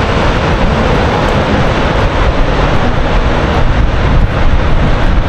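Strong wind buffeting the microphone, over the steady wash of ocean surf breaking on the beach below.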